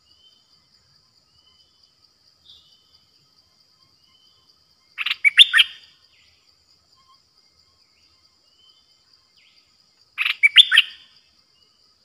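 A caged decoy bulbul singing two short phrases of several quick notes, about five seconds apart. Behind it run a faint steady high insect tone and faint chirps from other birds.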